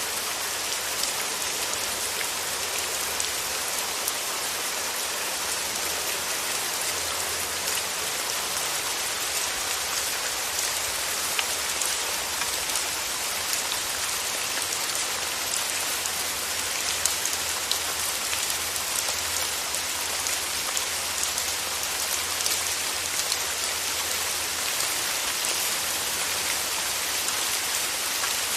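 Steady rain falling: an even hiss with many small scattered drop taps throughout.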